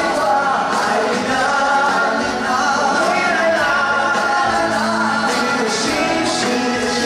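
Several male singers singing a Mandarin pop song together live, with band accompaniment including guitars.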